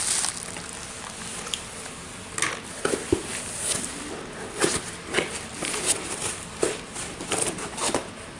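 Mouth noises of someone chewing candy: irregular wet smacks and small clicks, several a second, starting about two seconds in.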